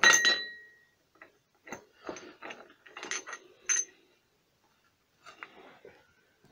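Steel bench vise being opened by its handle: a sharp metal clink that rings briefly at the start, then a run of light clicks and scrapes of metal on metal, and a few faint ticks near the end as the pulley with its pressed-out bearing is handled.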